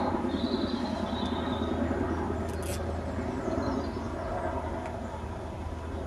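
Steady outdoor background rumble with no engine running, and one short sharp rustle or click about two and a half seconds in.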